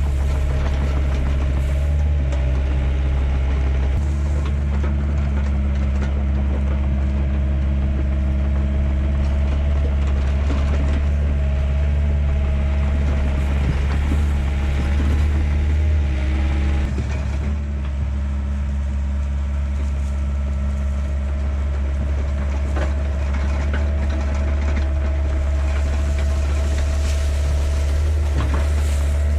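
Yanmar B50-1 mini excavator's diesel engine running steadily, with a brief dip in level about two-thirds of the way in and a few sharp knocks near the end.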